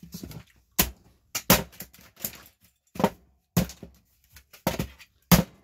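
Brick hammer striking the plastic case of a Wi-Fi router: a run of sharp, irregular knocks, roughly one or two a second, as the case is beaten loose to get it open.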